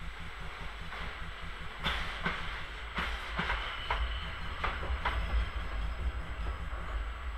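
ZSSK class 240 electric locomotive running light past at low speed, with a low rumble and a string of sharp wheel clacks over the rail joints and points, about seven in three seconds, midway through.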